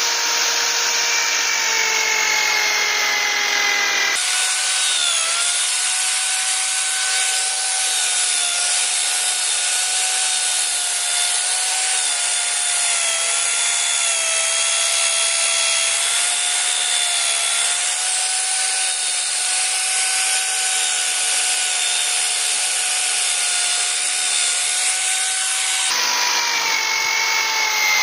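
Electric drill clamped to a bench, spinning an abrasive polishing wheel against a steel sword blade: a steady motor whine over a grinding hiss, its pitch wavering slightly. The sound changes abruptly about four seconds in and again near the end.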